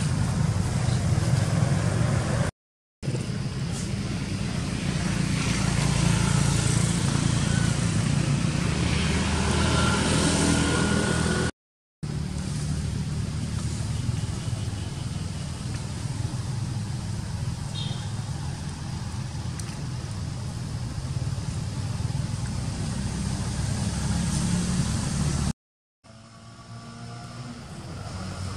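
Steady low outdoor rumble, broken by three brief silent gaps.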